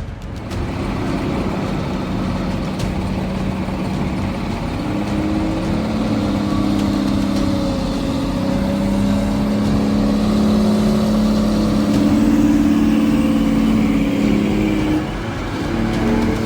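Engine of a heavily loaded truck running and revving, its pitch stepping up and down as it pulls.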